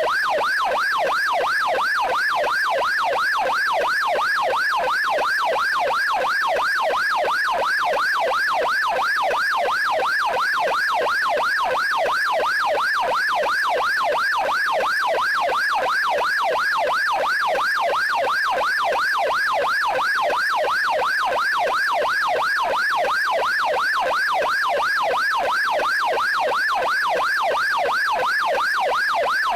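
Police car electronic siren on its yelp tone: a fast, even warble that sweeps up and down several times a second, steady and unbroken.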